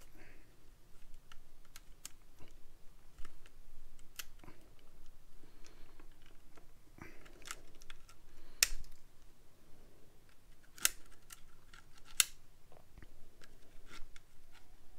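Scattered small clicks and scrapes of a screwdriver and fingers working the brush springs and brush holders loose inside an opened power-tool motor housing, with a few sharper ticks in the second half.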